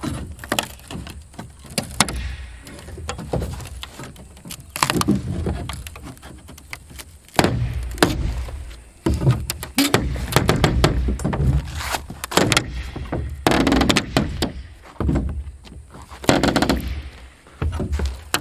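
Pry bar and scraper scraping and knocking against plywood roof decking as black roofing membrane is pried up and torn off: a run of irregular scrapes, thunks and clinks.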